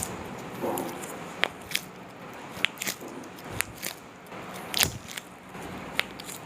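Joints cracking during a standing chiropractic manipulation: a series of about eight sharp clicks and pops spread over several seconds, the loudest about five seconds in.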